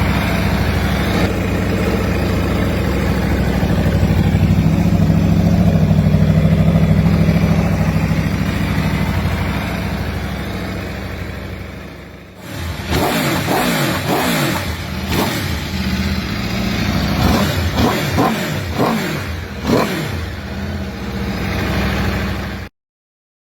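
Four-cylinder superbike on an Akrapovič exhaust: a steady engine note that fades away over several seconds, then a run of quick throttle blips revving up and dropping back. It cuts off abruptly near the end.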